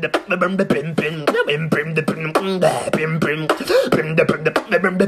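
Beatboxing: fast percussive mouth clicks and snares over a steady low hummed note that stops and starts.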